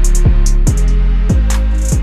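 Music with a heavy drum beat: deep bass kicks that drop in pitch, about two a second, over a sustained bass line and short hissy cymbal hits.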